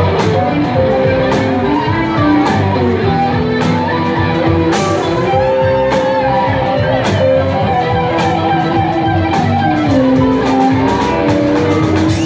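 Rock band playing live without vocals: electric guitars with held, bending notes over bass and a drum kit.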